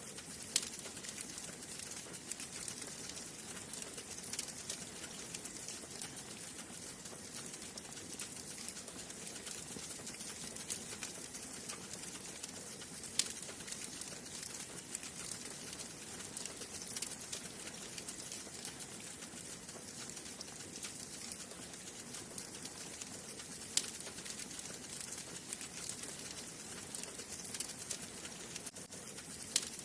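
Wood fire burning in a fireplace: a steady hiss with dense small crackles and an occasional sharper pop, the loudest about four times.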